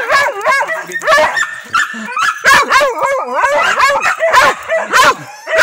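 Hunting dog barking and yelping at a lappe (paca) dug out of its burrow, a rapid string of yelps that swoop up and down in pitch, easing briefly about two seconds in.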